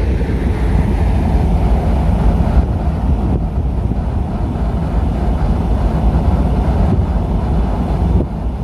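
Steady low rumble of a DF4B diesel-electric locomotive and its work train of rail-carrying flat wagons.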